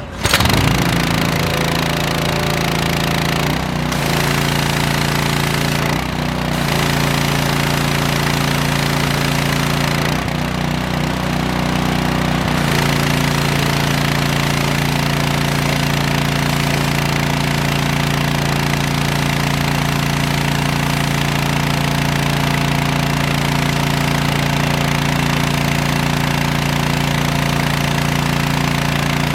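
Rebuilt BE 2700 psi pressure washer's small gas engine starting up and running steadily under load, with the hiss of the high-pressure spray. The sound dips briefly three times in the first dozen seconds, then holds steady.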